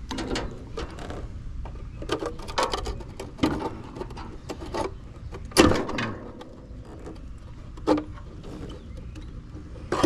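Irregular clicks and knocks of tools and metal parts being handled while working on an old Rheem air conditioner unit, over a steady low hum. The loudest knock comes a little past halfway.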